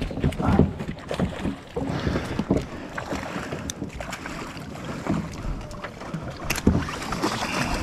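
Wind on the microphone and water lapping around a floating fishing raft, with irregular knocks and rustles from a landing net and pliers as a fish is unhooked.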